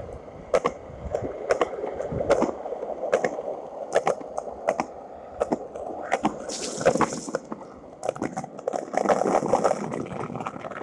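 Skateboard wheels rolling fast over wet concrete with a steady rumbling hiss, and a sharp clack about every three quarters of a second as the wheels cross the joints in the pavement.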